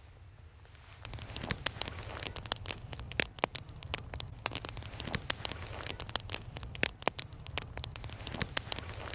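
Dry pine kindling snapping and crackling in quick, irregular sharp cracks over a low steady rumble, starting about a second in.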